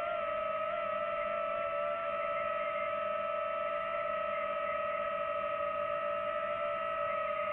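DJI FPV quadcopter hovering, its propellers giving a steady high whine that holds one pitch.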